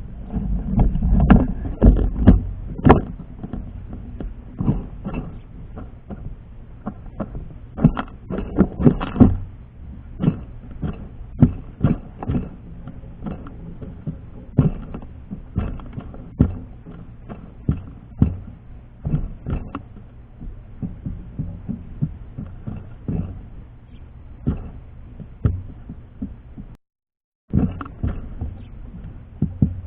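Birds pecking and scrabbling on a feeder close to the microphone: irregular taps and knocks, with heavier clusters of thumps in the first few seconds and again about eight seconds in.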